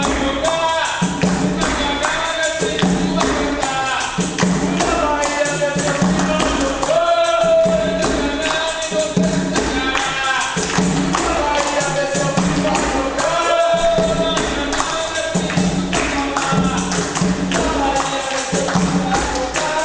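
Capoeira roda music: voices singing over the jingles of a pandeiro (tambourine) and steady percussion.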